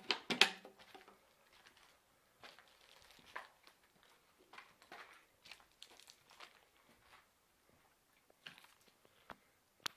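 Footsteps crunching on a gritty floor strewn with rubble and plastic litter, uneven steps at a slow walking pace. The loudest crunch comes right at the start, and there is a sharp click just before the end.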